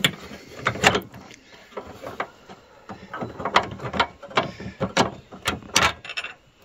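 Irregular clicks and knocks of a 1993–97 Pontiac Firebird's pop-up headlight motor assembly, its plastic housing and linkage rattling as it is wobbled and worked loose from its mount by hand.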